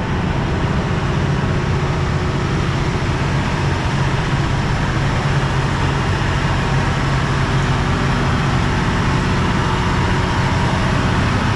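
KiHa 183 diesel railcar's engine idling steadily.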